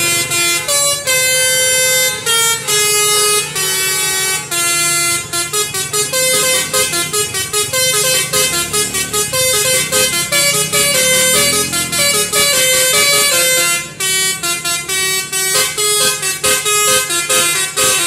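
Multi-tone 'telolet' bus horn playing a fast melody of short stepped notes. It breaks off for a moment about three-quarters of the way through, then carries on.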